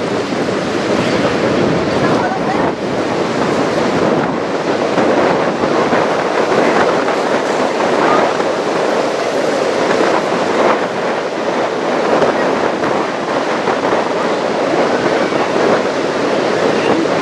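Steady rushing and splashing of water as the hull of a passing cruise ship pushes its bow wave and wash along, mixed with wind on the microphone.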